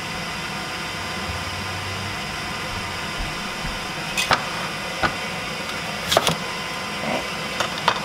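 A steady machine hum with a scattered run of sharp knocks and clatters in the second half, as produce and juicer parts are handled.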